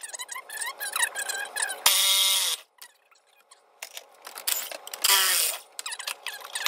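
Sped-up time-lapse sound of engine work on a 2012 Chevrolet Malibu's Ecotec cylinder head: a fast jumble of clicking and clattering tool noises. An impact wrench runs in two short loud bursts, about two seconds in and about five seconds in, each falling in pitch as it stops, with the sound dropping out for about a second between them.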